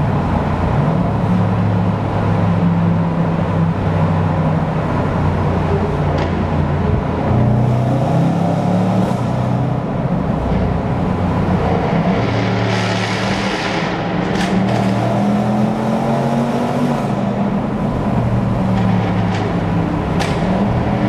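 V8 sports cars' engines and exhausts running hard in a road tunnel, echoing off the walls. The engine note rises and drops in steps as they accelerate and change gear, with a harsher rasp for a few seconds around the middle and a couple of sharp cracks, one midway and one near the end.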